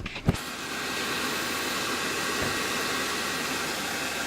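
Cooling fans of a powered-on desktop PC running with a steady rushing air noise, with two short clicks right at the start.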